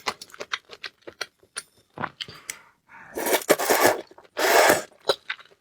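Close-miked eating sounds: many quick wet mouth and food clicks, with two longer, louder noisy bursts about three seconds in and again a second later.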